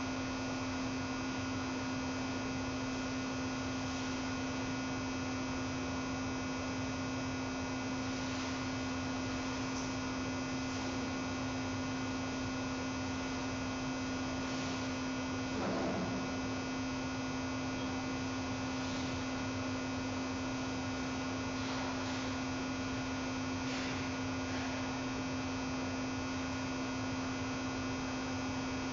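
Steady electrical mains hum from a webcam audio feed: one strong low tone with fainter higher tones over a hiss. There are faint scattered ticks, and a brief low sound about halfway through.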